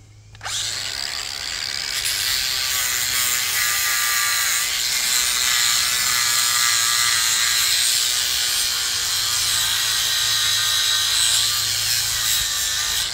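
Angle grinder spinning up about half a second in, then running steadily with a high whine as its disc grinds and smooths the edges of a cedar wood carving.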